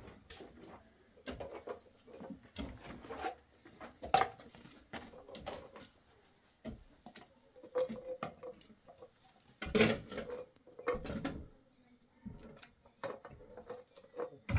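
Irregular clicks, taps and scrapes of hand work on PVC drain pipe: fittings being handled and a brush dabbing PVC glue in a small metal can, with the loudest cluster of knocks about ten seconds in.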